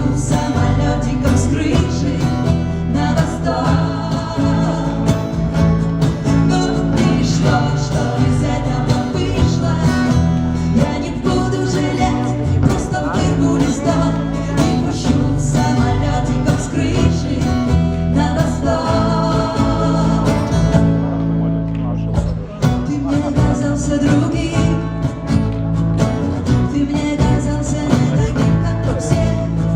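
A live band playing a pop song, with a woman singing. The music thins out briefly about two-thirds of the way through.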